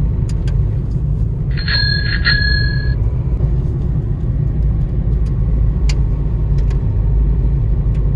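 Car cabin noise while driving on a snow-covered road: a steady low rumble of tyres and engine. About a second and a half in, a bell-like chime sounds twice, about half a second apart, ringing for about a second.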